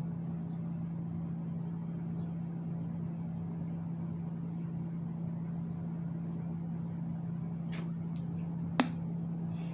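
Steady low hum of room noise, with a few faint clicks and one sharp knock near the end.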